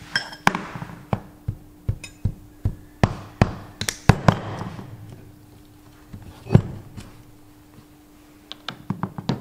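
Hammer tapping on steel pliers and the split pin in a tractor front hub's castle nut, about a dozen sharp metallic taps over the first four seconds or so, some ringing briefly. One louder knock comes about six and a half seconds in, then a few light clicks near the end, over a steady low hum.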